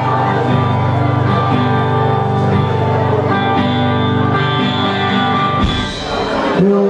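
Live rock band playing an instrumental passage on electric guitars, bass guitar and drums. The sound thins out briefly about six seconds in, then comes back up.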